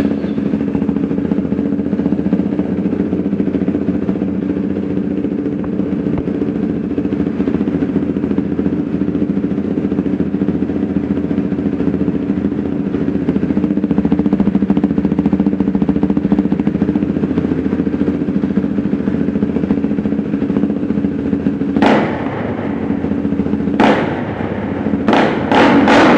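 KTM Duke 390's single-cylinder engine idling steadily through an aftermarket Akrapovic-replica exhaust, with a fast even pulse. Near the end a few short sharp sounds break in.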